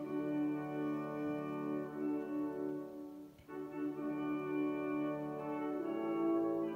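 Instrumental music of long held chords, breaking off briefly a little past halfway and then resuming.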